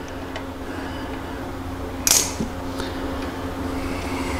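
Steady low hum in a small room, with a few faint light clicks and one short swish about two seconds in: small handling noises as the oil dipstick is backed out and read.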